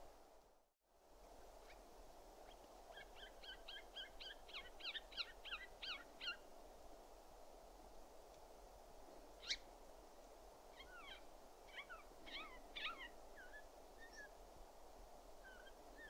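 Siberian jay calling: a quick run of short, clipped notes a few seconds in, a single sharp note near the middle, then another scattered burst of calls, over a faint steady background hiss.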